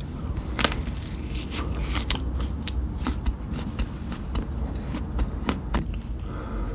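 Ice cream being eaten close to the microphone: biting and chewing, with irregular crisp crunches and wet mouth clicks, the loudest crunch about half a second in.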